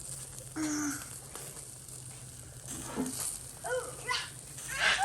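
A baby or toddler making a few short babbling calls whose pitch arches up and down, the loudest near the end, over a steady low hum.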